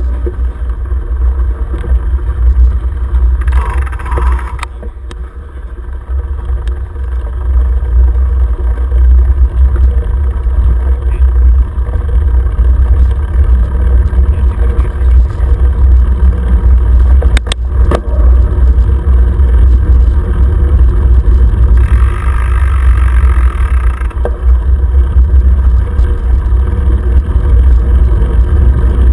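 Wind buffeting a GoPro's microphone while riding a mountain bike on a dirt path: a steady low rumble with the bike's rattle mixed in. A brief louder hiss about 4 s in and again around 22 s, like traffic going by on the road alongside, and a single sharp knock at about 17 s.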